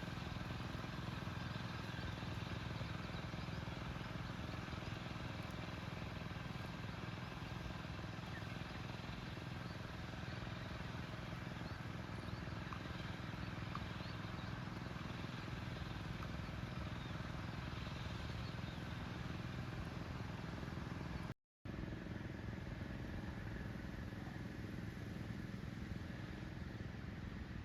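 Small engine running steadily, from a chain-weeding machine working a flooded rice paddy. The sound cuts out for a moment about three-quarters of the way through.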